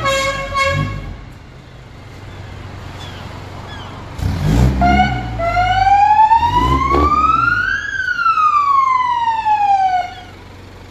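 A siren sweeps up in pitch for about three seconds and then falls for about two, over the low running and revving of a pickup truck's engine as it pulls away. Background music fades out in the first second.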